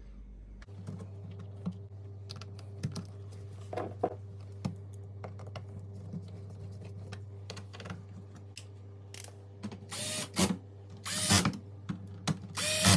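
Light clicks and taps of small screws being started and tightened while the replacement convection fan motor is fastened to its mount, with a few louder scraping bursts near the end.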